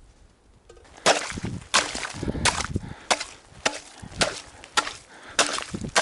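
A hatchet chopping into the frozen river's ice and snow: about nine sharp strikes at a steady pace of roughly one and a half a second, starting about a second in.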